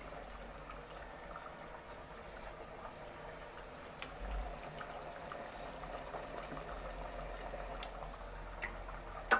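Thick pork curry simmering in a pan, a steady low bubbling, with a few sharp clicks, the loudest near the end.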